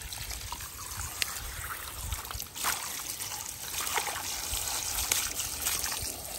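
Water trickling and spattering steadily, with a few light taps.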